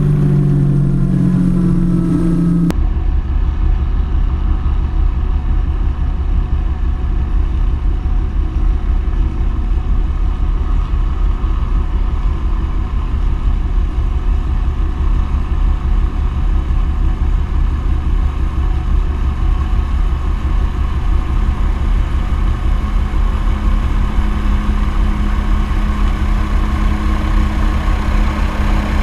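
MD500C helicopter's turbine and rotor heard from the cockpit for the first couple of seconds, its tones falling slightly. It then gives way abruptly to a steady, heavy low rumble on the ship's deck, with the approaching helicopter's rotor and turbine tone growing louder near the end.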